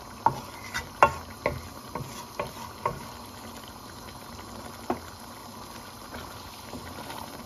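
Wooden spoon knocking and scraping against the side of a metal pot while stirring a simmering chicken and chickpea curry: a run of sharp taps in the first three seconds and one more near five seconds. Underneath, the gravy bubbles steadily.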